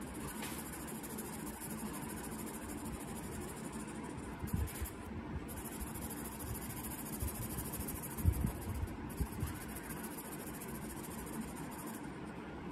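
Marker pen scratching over paper in rapid back-and-forth colouring strokes, pausing briefly twice, with a couple of soft low thumps.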